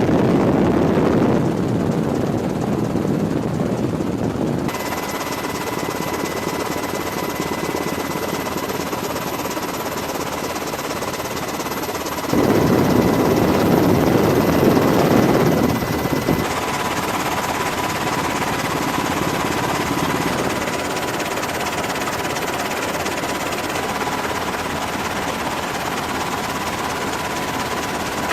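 Loud, steady roar of engines and rushing air with a faint high steady whine, changing abruptly several times between shots.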